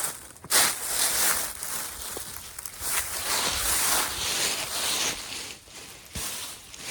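Continuous rustling and crunching in dry leaves and brush, rising and falling in level, as from footsteps or handling through debris.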